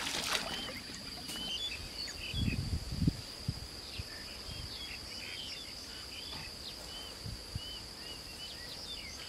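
Rural outdoor ambience: a steady high-pitched insect drone with many short bird chirps scattered over it. A few low thumps come about two and a half to three seconds in.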